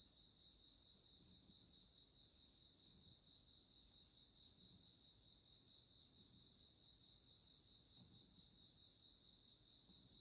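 Faint, steady high-pitched chirping of crickets in a continuous trill, with a second, slightly higher trill joining now and then.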